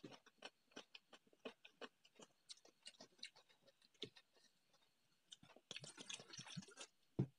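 Scattered soft clicks and smacks of eating, then liquid poured from a plastic bottle splashing onto a steel plate for about a second, near the end, followed by a single sharp knock.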